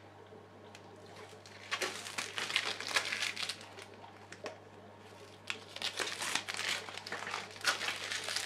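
Protective film being peeled off clear acrylic panels and crumpled, crinkling in two spells: about two seconds in and again about five and a half seconds in.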